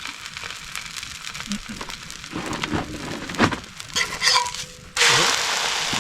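Light clicks and knocks of cookware being handled, then food on a hot pan starts sizzling loudly and abruptly about five seconds in.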